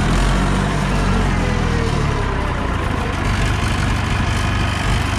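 Massey Ferguson 178's four-cylinder Perkins diesel engine running steadily as the tractor moves off.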